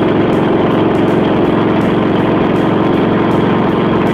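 Loud, steady rush of wind buffeting a phone microphone, with a running engine underneath it.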